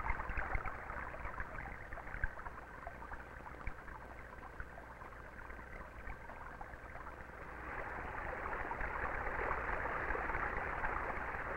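Running water in a stream, a steady rushing sound that grows louder over the last few seconds.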